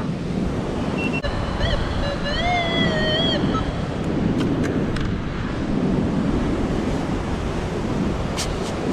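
Surf washing on the shore with wind on the microphone. About a second in, a metal detector sounds a warbling tone for about two seconds over a buried metal target, and a few light clicks follow.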